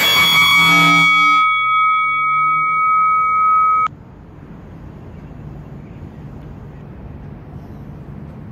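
Interval timer chime ringing with several steady tones that cut off abruptly about four seconds in, signalling the end of a work interval. Faint steady city traffic noise follows.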